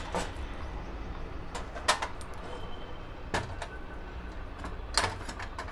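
A handful of sharp clacks from a portable butane gas stove being handled as its canister compartment cover is shut, the loudest about two and five seconds in, over a steady low background rumble.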